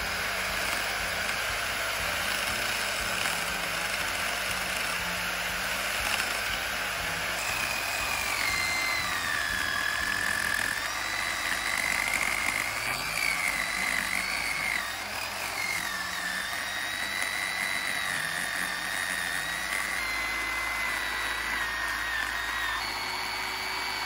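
Chainsaw running under load as it cuts down into the end grain of a log round, slotting it for a Swedish torch. Its pitch rises and falls as the chain bites and eases off.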